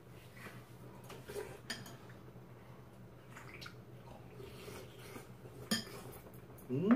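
Metal spoon and chopsticks clinking lightly against a soup bowl a few times while eating, with a short vocal sound that rises and falls in pitch right at the end.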